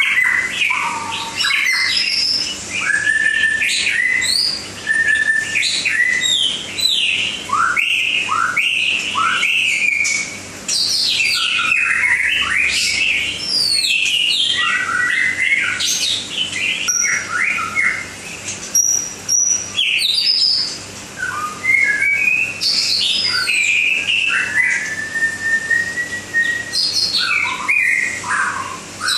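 White-rumped shama (murai batu) singing: a long run of varied, clear whistled phrases, with rising and falling notes and quick trills, broken by a few short pauses.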